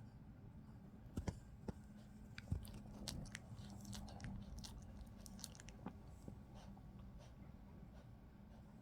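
A poodle's mouth sounds: a scatter of small wet clicks and smacks, as of chewing or licking, thickest in the middle few seconds.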